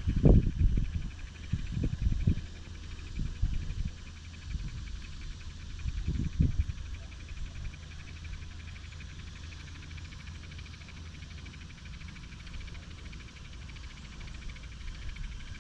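Insects trilling steadily in a fast, even pulse, over a low hum, with irregular low thumps and rumble through the first several seconds.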